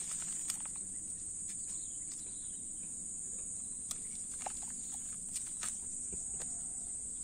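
Steady, high-pitched chirring of insects, unbroken throughout, with a few faint clicks as the plastic bottle and tape of an air layer are handled.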